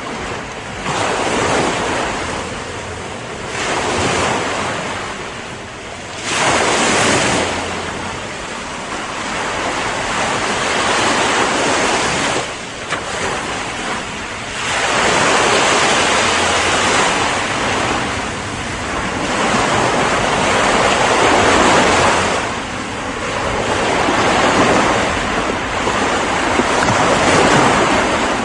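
Ocean surf: waves breaking and washing in, rising and falling in surges every few seconds.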